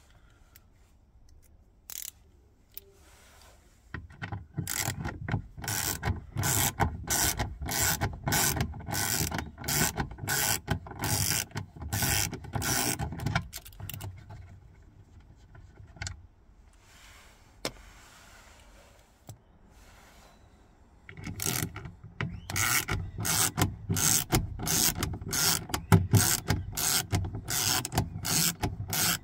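Hand ratchet being worked back and forth on fasteners, its pawl clicking in rapid even strokes, about two a second. It runs in two long spells with a pause of several seconds between them.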